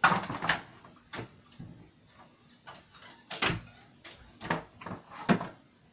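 An irregular series of knocks and clunks, about ten in six seconds, the loudest right at the start and near the end.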